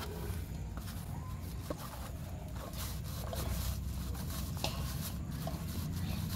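A ball of soft dough being pressed and rounded by hand in a stainless steel plate, with light scattered taps and rubbing, over a steady low-pitched hum.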